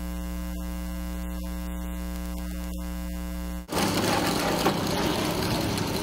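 Steady electrical mains hum, a buzz made of several fixed tones. About three and a half seconds in it cuts off abruptly, and louder rough outdoor noise takes over.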